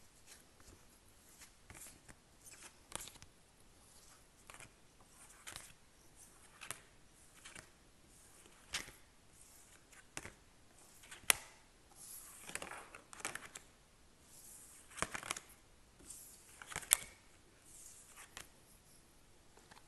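Quiet tarot and oracle cards being gathered off a table by hand: short papery slides and sharp taps as they are picked up and stacked. The sharpest taps come about halfway through and near the end.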